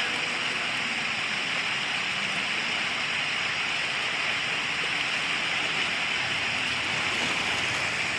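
Steady, even rushing hiss of water, unbroken and without rises or pauses.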